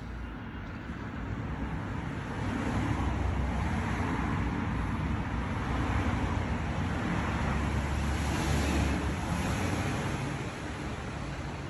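Passing road traffic: a rushing noise that swells about two seconds in, holds, and fades near the end.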